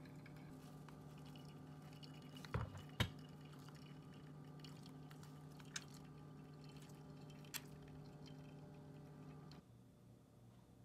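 Coffee dripping slowly from a ceramic pour-over cone dripper into a glass carafe, a few separate drips, the two loudest about two and a half and three seconds in. A steady low hum runs underneath and stops near the end.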